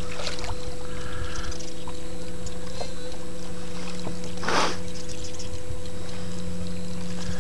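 Bass boat's motor humming steadily as the boat moves slowly along the water, with a short burst of hiss about four and a half seconds in.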